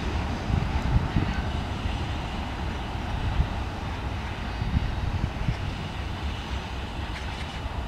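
Freight train wagons rolling away on the rails: a steady low rumble with scattered wheel knocks, slowly fading as the train recedes.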